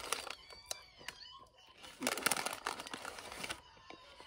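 Paper French-fry bag crinkling and rustling as it is handled. It comes in uneven spells, the longest and loudest starting about two seconds in.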